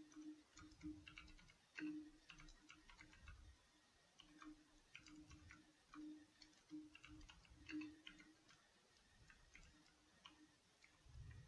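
Faint, irregular clicking of computer keyboard keys as code is typed.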